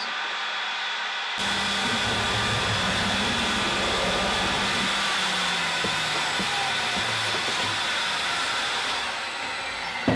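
Vacuum cleaner running steadily, its hose nozzle sucking MDF dust and chips out of a freshly routed groove. The noise comes in abruptly about a second in and eases a little near the end.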